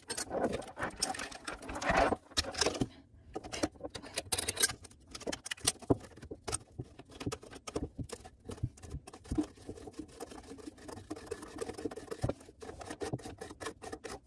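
A faucet mounting nut being turned by hand up the threaded shank, giving a rapid, irregular run of small clicks and scrapes.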